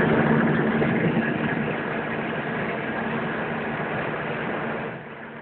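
Citroën 2CV's air-cooled flat-twin engine running steadily at motorway speed, heard from inside the cabin together with road and wind noise. The sound drops noticeably in level near the end.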